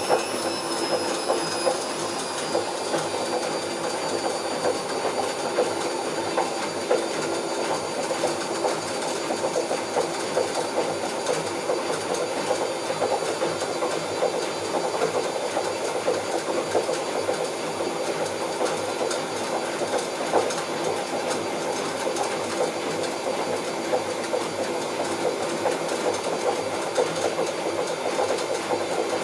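Bauknecht WA Plus 844 washing machine running with its drum turning, a continuous rough rumble with rapid irregular clattering, the sound of a damaged drum bearing. A high motor whine falls in pitch over the first few seconds.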